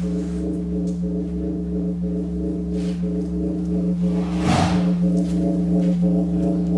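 Sound-therapy tones played from a laptop through a pair of Bose computer speakers: a steady drone of several held tones sounding together. A brief rushing noise cuts across it about four and a half seconds in.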